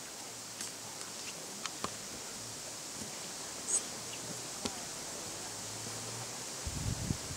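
Outdoor ambience: a steady hiss with a few faint scattered clicks and one short high chirp near the middle. Wind starts buffeting the microphone with a low rumble near the end.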